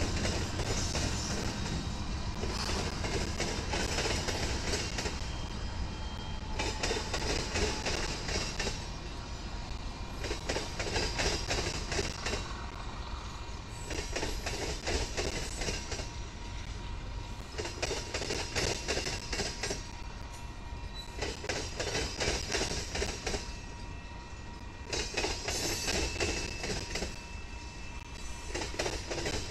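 Diesel freight train rolling past: a steady low locomotive rumble, with the wheels clattering in regular bursts about every three to four seconds.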